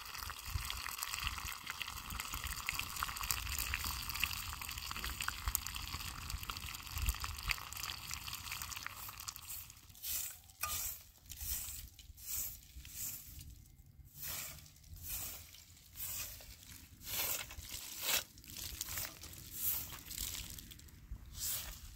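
A steady hissing rush for about the first ten seconds, then a straw broom sweeping dirt ground: short, brisk swishes about one and a half a second.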